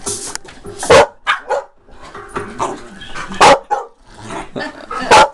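Small dog barking at an aerosol spray can: three loud, sharp barks about a second in, in the middle and near the end, with smaller barks between. A short hiss of spray from the can at the start.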